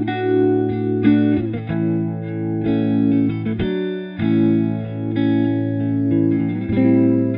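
Electric guitar chords played through an Electro-Harmonix Lester K rotary-speaker pedal, with the pedal's swirling rotary effect. The brake is engaged, so the simulated rotor is winding down gradually and its pulsing slows, like a real Leslie coasting to a stop.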